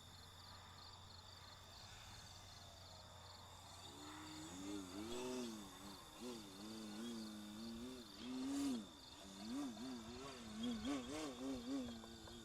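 Electric motor and propeller of an RC Extra 300 whining faintly from about four seconds in, its pitch rising and falling again and again as the throttle is worked to hold a hover. Crickets chirp steadily throughout.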